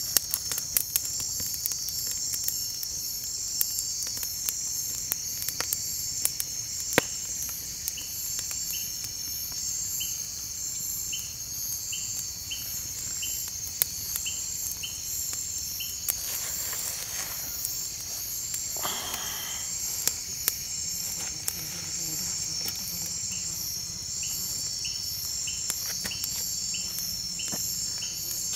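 Night insects chirping steadily: a dense high cricket chorus, with a lower chirp repeating about twice a second. Sharp pops and crackles from a small campfire come throughout, with a couple of brief rustles a little past halfway.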